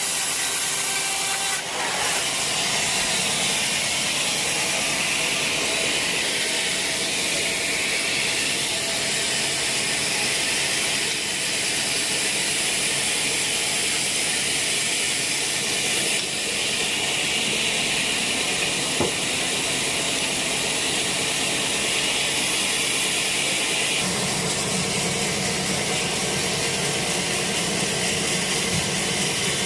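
Sawmill saw ripping lengthwise through a long, fresh teak log, a steady loud sawing noise that goes on without a break. A lower drone joins in with about six seconds left.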